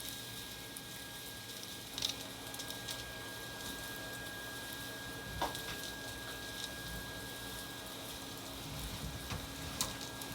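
Steady crackling hiss of loose-fill cellulose insulation being blown through a hose into an attic, with a faint steady hum and a few scattered clicks and knocks.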